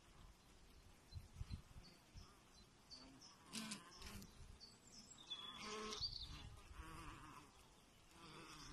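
Faint honeybee buzzing on brood comb, coming and going in short stretches.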